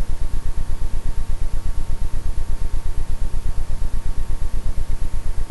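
A steady low hum that throbs fast and evenly, about ten pulses a second, with a faint steady high tone over an even hiss.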